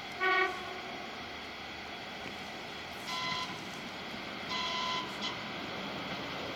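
ET2M electric multiple unit approaching with a steady running noise, sounding a short low horn blast just after the start, then two half-second higher-pitched whistle toots about three and four and a half seconds in, the second followed by a brief peep.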